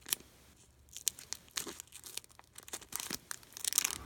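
Plastic foil wrapper of a trading-card pack being torn and crinkled open by hand in short, sharp crackles, the loudest tearing near the end.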